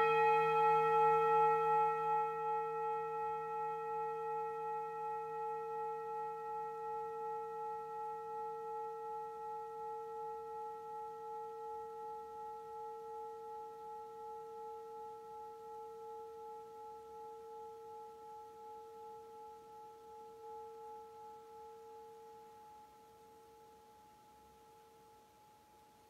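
Singing bowl struck once with a mallet, then ringing with several tones at once and a slow, regular pulsing wobble. It fades gradually over about 25 seconds until the ring dies away.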